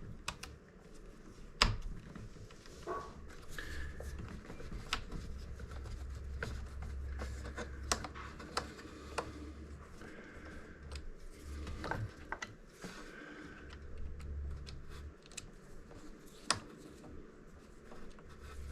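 Scattered light clicks and scrapes of a small screwdriver and hands working at the plastic underside of a Roomba 675, unscrewing the side-brush motor.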